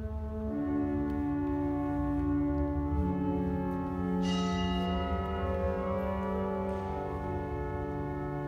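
Church organ playing slow, sustained chords, each held for a second or more before moving to the next.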